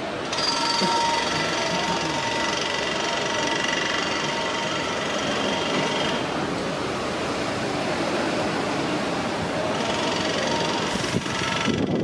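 ODEG double-deck electric multiple unit approaching along the platform track, a steady rumble with high, steady whining tones that start suddenly just after the beginning and fade about halfway. The whine returns near the end as the train draws close and its rumble grows heavier.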